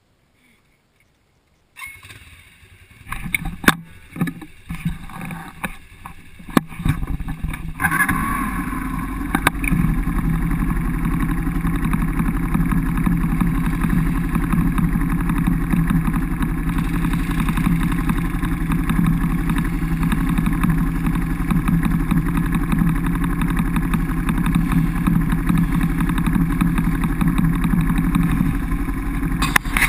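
A few knocks and handling noises, then about eight seconds in a quad bike's engine starts and runs steadily.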